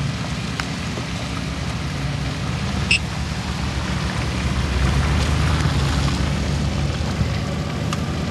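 Steady low rumble of a car driving, with a brief high chirp about three seconds in.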